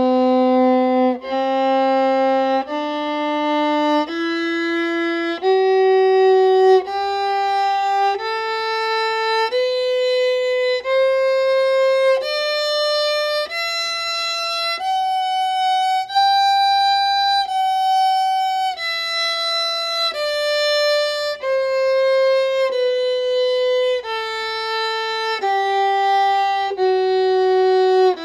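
Viola playing a two-octave G major scale entirely in third position, one slow, even bowed note about every second and a half. The scale climbs to the top G about two-thirds of the way through and then steps back down.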